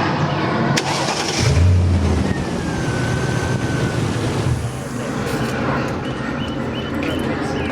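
Car engine running, with a louder surge in its low rumble about one and a half seconds in. The engine has a cylinder 4 misfire that the owner puts down to a bad coil pack.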